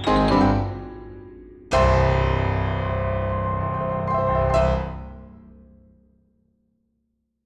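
Background piano music: the last notes of a phrase fade, then a full chord is struck about two seconds in and rings out, swelling once more before it dies away to silence near the end.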